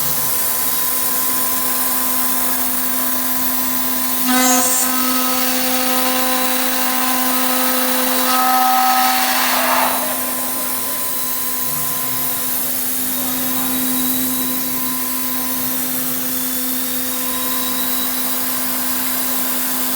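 CNC milling machining centre spindle running with a steady whine. About four seconds in the cutter starts cutting the aluminium profile, adding louder ringing cutting tones. These end in a brief rush of noise about ten seconds in.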